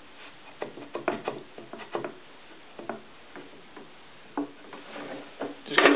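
Scattered light clicks, taps and knocks of wood and metal as a wooden board is handled and positioned under a drill press, with no motor running.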